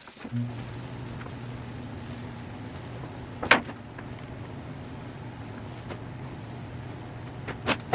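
A vehicle engine running steadily, starting abruptly just after the start, with a sharp knock about three and a half seconds in and another near the end.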